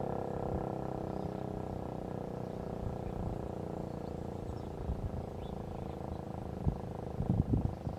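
ASC T-128 outdoor warning siren sounding its steady full-alert tone as it fades away. Near the end, irregular low rumbles become the loudest sound.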